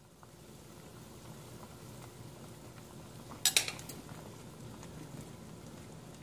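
A pot of soup at a rolling boil, bubbling steadily, with a quick cluster of sharp metal clinks about three and a half seconds in as a utensil knocks against the stainless steel pot.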